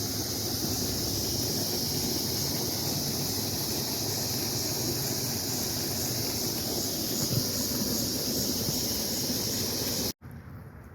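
Steady rushing creek noise with a high, even insect drone over it, likely crickets. About ten seconds in it cuts off abruptly to a much quieter background.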